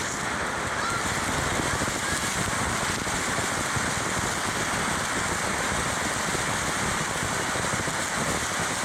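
Ground fountain firework spraying sparks: a steady, dense hiss full of fine crackle, heard from right beside the fountain.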